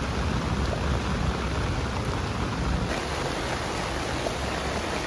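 Heavy rain falling steadily on a nylon tent rainfly and grass, a dense even patter with a low rumble underneath.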